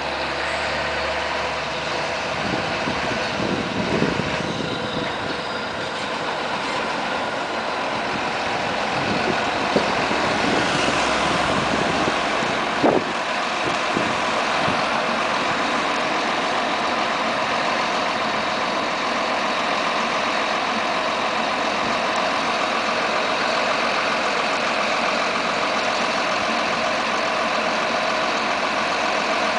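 John Deere 7920 tractor's six-cylinder diesel engine running as it tows a Schuitemaker wagon slowly down a gravel track, then idling steadily at a standstill. There are a few sharp knocks in the first half.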